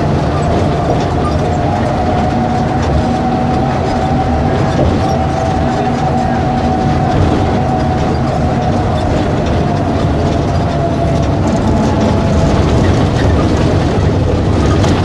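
Volkswagen 17.230 EOD bus engine running steadily: a dense low drone with a steady whine above it.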